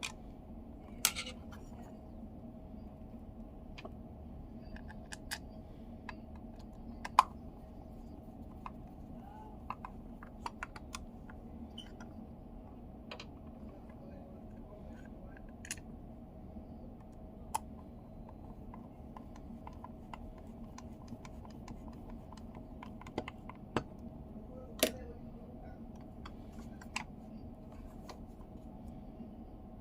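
Scattered sharp clicks and taps at irregular intervals from the small plastic parts of a Mazda commander control knob being handled, over a faint steady hum.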